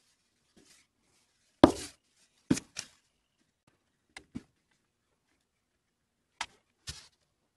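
One-handed trigger bar clamp being set on a glued wooden part and tightened: a series of sharp clicks and knocks. The loudest comes about one and a half seconds in, then the rest follow in pairs.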